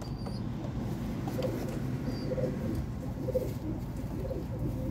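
Domestic pigeons cooing: several short, low coos, with a brief high chirp about two seconds in.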